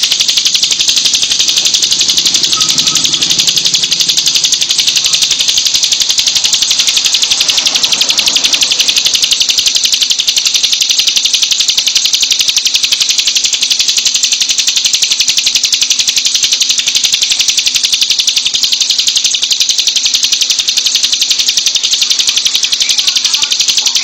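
Bar-winged prinia (ciblek) singing a continuous, rapid, high buzzing trill with no break.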